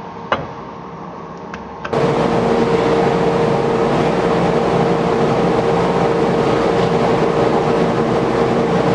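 Tormach CNC mill running steadily with a constant whine over a dense noise, starting suddenly about two seconds in after a quieter stretch with a couple of light clicks.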